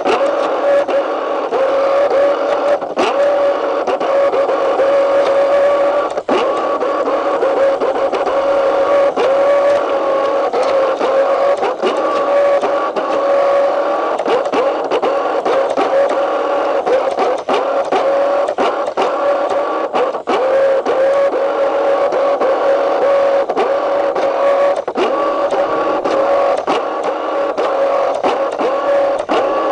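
Motorboat engine running steadily at one pitch, with frequent short sharp knocks through it.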